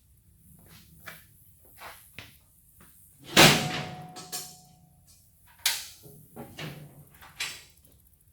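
Metal parts of a zero-turn mower clanking and knocking as a part is worked loose and taken off: a string of knocks, the loudest a little over three seconds in with a brief metallic ring after it, then several more clunks.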